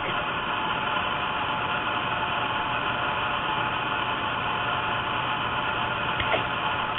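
Steady hiss with a faint low hum underneath, and a couple of faint ticks about six seconds in.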